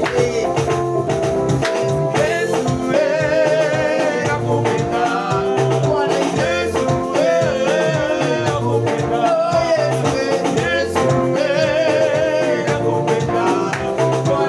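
Upbeat praise music with a steady beat: singing over drums and bass.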